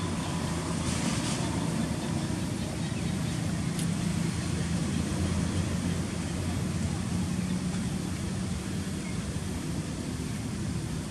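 A steady low engine hum from a running motor, with one faint click about four seconds in.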